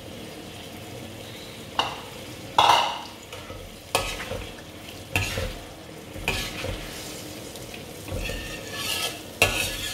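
A spoon stirring and scraping in a pot of masala gravy made with coconut milk, which is sizzling as it cooks down. Irregular louder scrapes or knocks against the pot come every second or so, the strongest about two and a half seconds in.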